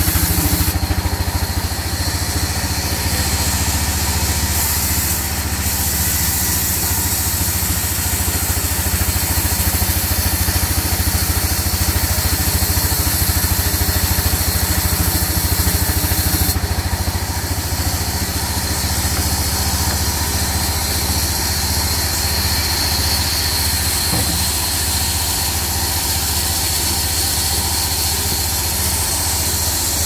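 A sawmill's diesel engine running steadily at one unchanging speed.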